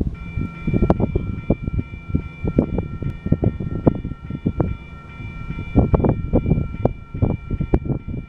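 Railroad grade-crossing warning bell starts just as the crossing lights begin to flash and rings steadily as the gates come down. Gusts of wind buffet the microphone, and they are the loudest thing.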